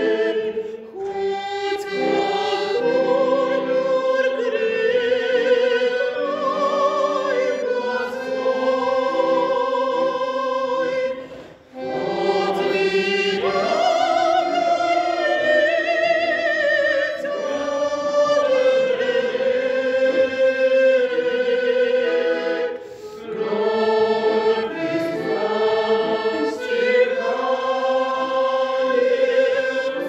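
Church choir singing a hymn with a woman's voice among them, over held accordion chords, with short breaks between phrases about 11 and 23 seconds in.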